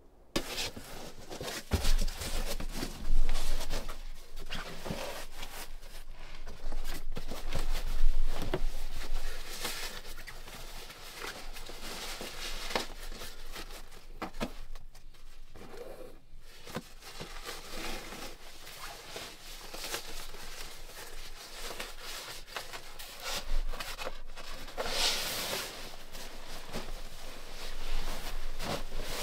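Nylon fabric rustling and rubbing as a sleeping bag is pulled out of its stuff sack, with a few louder bumps from the handling.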